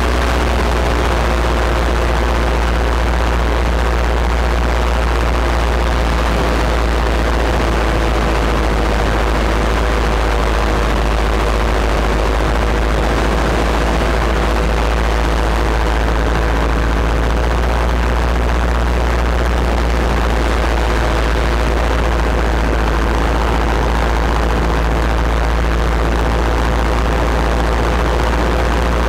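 Paramotor engine and propeller running steadily in flight, a constant loud drone with a strong low hum, heard from the pilot's harness.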